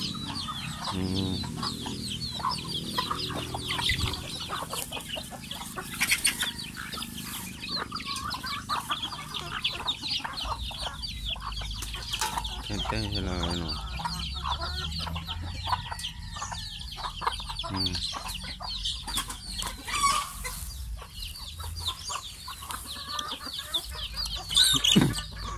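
A flock of chickens clucking and calling continuously, with a louder call near the end.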